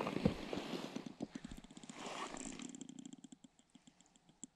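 Close handling of fishing line and a small jigging lure: rustling of a fleece glove and jacket sleeve for the first couple of seconds, then a run of small, irregular clicks as the lure and hook are worked in the fingers.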